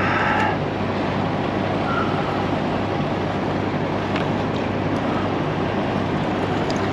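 Diesel truck idling: a steady low hum under an even rushing noise.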